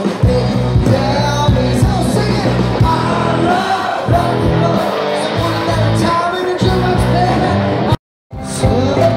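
Live band playing loud amplified rock music with electric guitars, drums and singing. Near the end the sound drops out completely for a moment.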